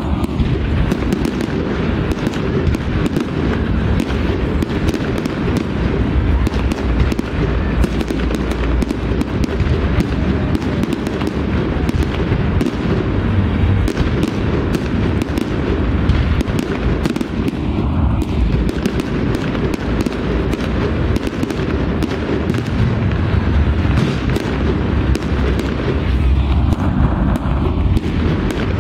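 Fireworks display in full barrage: a dense, unbroken run of bangs and crackles over heavy low booms.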